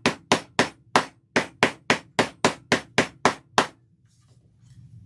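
Rubber mallet striking a push-together turnlock through a cloth cover, driving the force-fit hardware into a bag flap. About a dozen quick, even taps at roughly four a second, stopping near the end.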